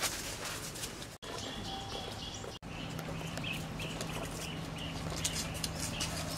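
Bird chirps, short and high, repeating about twice a second over a steady low hum, after two brief dropouts in the sound.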